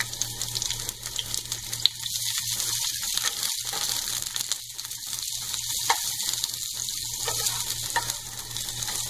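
Raw onion rings sizzling as they sauté in hot oil on high heat in a nonstick kadhai. A wooden spatula stirs them, with a few sharp taps and scrapes against the pan.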